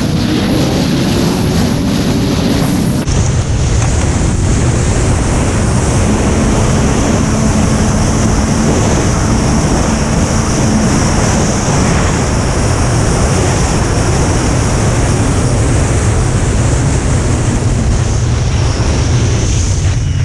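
Snowmobile running along at speed, its engine partly buried under loud, steady wind buffeting the on-board microphone. The sound changes abruptly about three seconds in.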